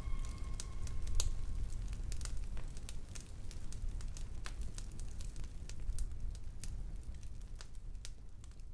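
Large bonfire crackling: irregular sharp pops and snaps over a low rumble of flames, fading out near the end.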